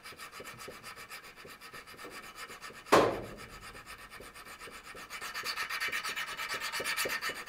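High speed steel lathe tool bit being rubbed back and forth by hand on a small diamond hone in quick, even strokes, touching up the edge to take out the grinding-wheel pattern. There is one sharp clink about three seconds in, and the strokes grow louder in the last couple of seconds.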